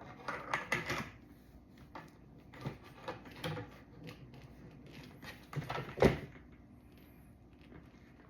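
Parts of an AB Carver Pro ab roller clicking and knocking as it is put together by hand, in several short clusters, with the loudest sharp knock about six seconds in.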